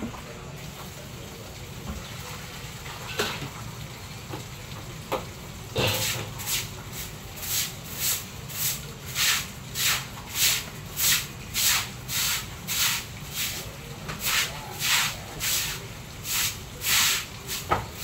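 A few light knocks, then from about six seconds in a steady run of swishing brush strokes, about two a second.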